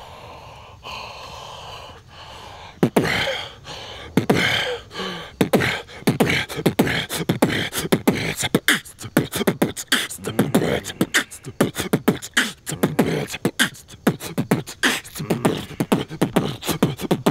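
A man beatboxing. After about three quiet seconds come a few scattered percussive mouth sounds, which settle into a fast, steady beat a few seconds later.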